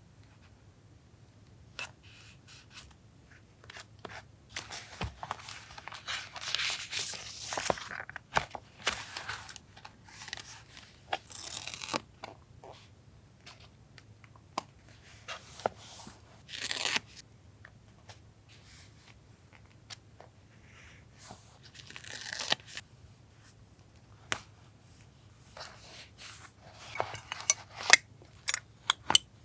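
Paper being torn, cut with scissors and handled for collage journaling: irregular rustles and longer tearing strokes with small taps and clicks between, and a few sharp clicks near the end.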